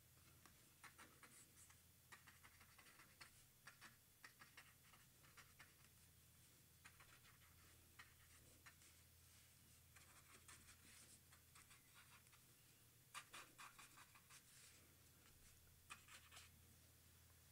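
Faint scratching of a brush pen's tip stroking across paper, in short bursts of quick strokes with pauses between them; the strongest strokes come about two-thirds of the way through.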